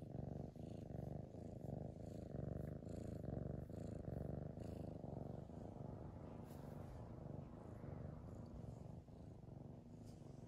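A cat purring steadily while being stroked, a low continuous rumble that swells and eases gently, with a few faint high ticks.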